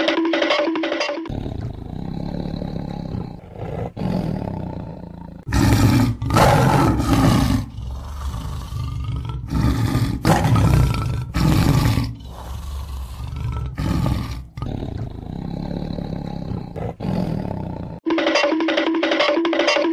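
Tiger growling low and roaring several times, with the loudest roars in the middle of the stretch. A short music jingle plays for the first second and comes back near the end.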